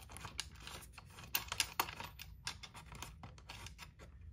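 Light, irregular clicks and scratches of fingers working a cap screw with a brass washer against a plastic shell, with the loudest clicks about a second and a half in.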